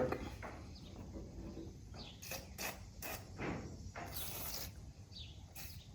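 Faint, scattered clicks, scrapes and rustles of things being handled and moved, with a brief hiss about four seconds in.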